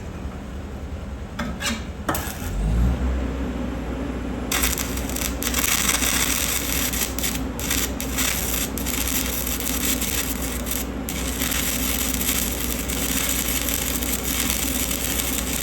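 Stick-welding arc crackling and hissing steadily for about eleven seconds, then cutting off suddenly as the arc is broken, over a low steady hum that sets in about two and a half seconds in.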